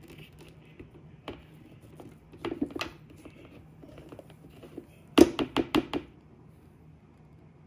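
Silicone spatula working in a mixing bowl, knocking against it: a few scattered taps, then about five quick, sharp knocks in a row a little past the middle.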